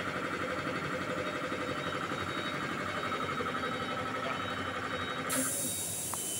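Swan belt-driven piston air compressor running with a fast, even pulsing; about five seconds in the running note drops away and a sudden loud hiss of compressed air being released takes over.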